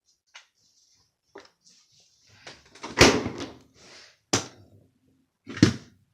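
Kitchen doors being opened and shut while searching for food: a string of knocks and bangs with some rustling. The loudest bang comes about three seconds in, and two more sharp ones come near the end.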